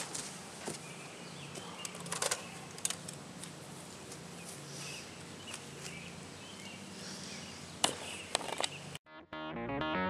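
Quiet outdoor yard ambience with a few short, sharp clicks and knocks. Near the end the sound cuts out almost entirely and music begins.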